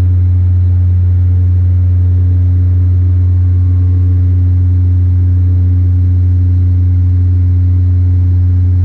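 Bombardier Dash 8 Q400 turboprop heard inside the cabin beside the propeller in the climb after takeoff: a loud, steady, deep propeller drone with a strong low hum and a few higher overtones, unchanging throughout.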